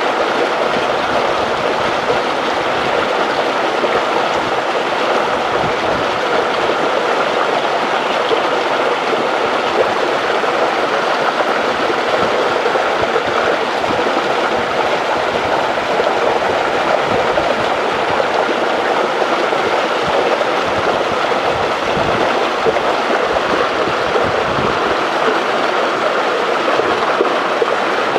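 Steady rushing of water pouring over or through a dam, a constant even noise with a faint low rumble now and then.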